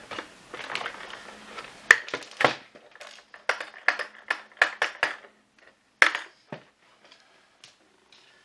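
Hard plastic parts of a vacuum cleaner's floor head knocking and clicking as they are handled and turned over: a run of sharp knocks, the loudest about two and six seconds in, dying away near the end.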